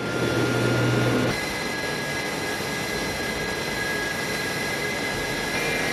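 Twin turbofan engines of a Sukhoi Su-35 fighter running on the ground: a steady rushing noise with a high, even whine. A heavier low hum sits under it for the first second or so.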